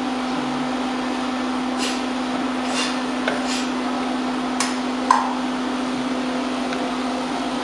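15 kHz ultrasonic lace sewing machine running: a steady hum with a few short, light clicks and taps scattered through it.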